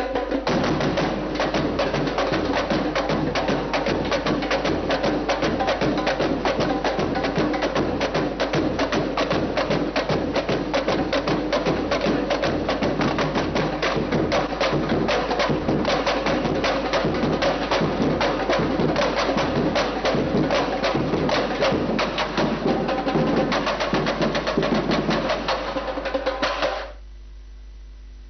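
Batucada samba percussion group playing a dense, driving rhythm on surdo bass drums and smaller drums struck with sticks. The drumming stops abruptly near the end.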